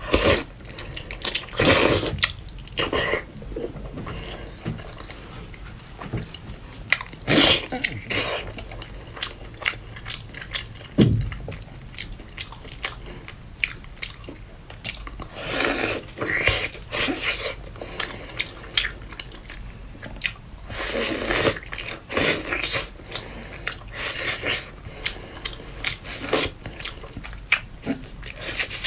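Close-miked eating: a person biting and chewing food, with irregular louder bursts of biting, crunching and slurping noise every few seconds.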